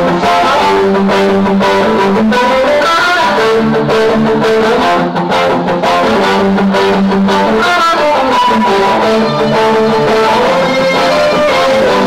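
A live rock band playing: electric guitars and bass guitar over a drum kit with cymbals, loud and steady.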